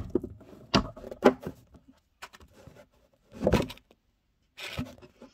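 Handling sounds of small objects being moved and set down: several sharp knocks and clicks in the first second and a half, then a longer bump about three and a half seconds in and another near the end.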